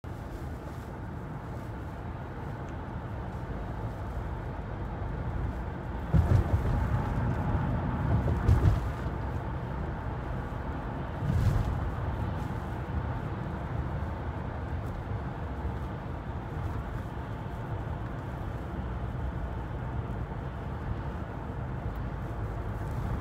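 Tyre and road noise heard inside a moving car's cabin: a steady rumble of the tyres on a concrete road surface. It grows rougher and louder with a few thumps for a few seconds starting about six seconds in, and again briefly near the middle.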